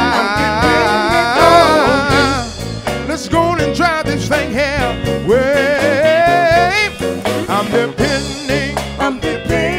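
Live gospel band playing: electric guitar, keyboard, bass and drums, with a lead line that wavers and slides over the steady band.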